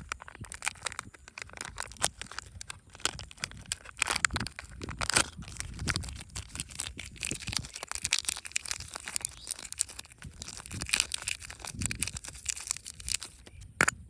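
Packaging of surprise eggs and candy being handled, crinkled and crushed by hand: a dense run of small crackles and clicks with sharper snaps now and then.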